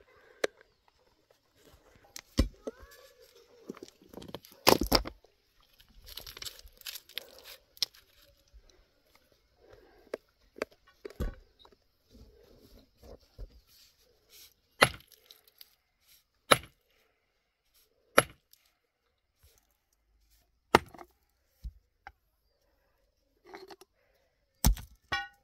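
Hand tools striking rock as stone is broken up by hand: about eight sharp blows at uneven gaps of one to four seconds, with faint scraping and shifting between them.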